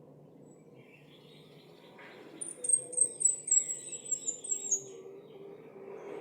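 Orange-headed thrush (anis merah) singing: a rapid run of about ten high, sharp notes, the last few falling slightly in pitch. Softer twittering runs under and around it.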